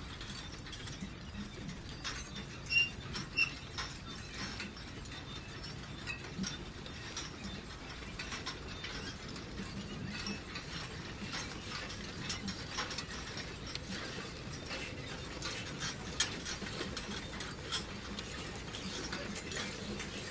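Manure spreader running: a steady mechanical clatter made of many small clicks and rattles, with two louder knocks about three seconds in.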